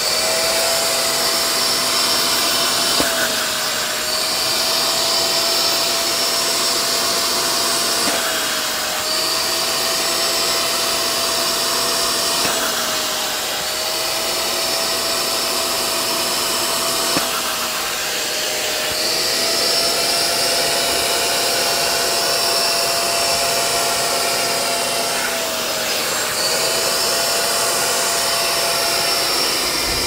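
Small portable spot cleaner's suction motor running continuously during wet extraction, a steady whine whose pitch dips briefly every four to five seconds as each pass of the nozzle loads it while it pulls water out.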